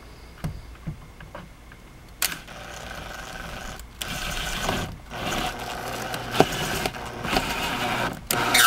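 Cordless drill-driver driving a screw up through an overhead screen's mount into the headliner. The motor starts about two seconds in and runs in several stretches with short stops between them, with a sharp click partway through.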